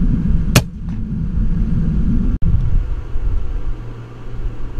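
One sharp shot of a moderated FX Impact M3 .25 air rifle about half a second in, over a steady low rumble.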